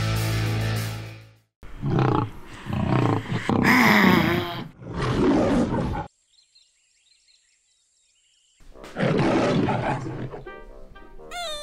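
A lion roaring about four times in a row: the MGM logo lion roar. It comes after music fades out, and music starts again in the last few seconds.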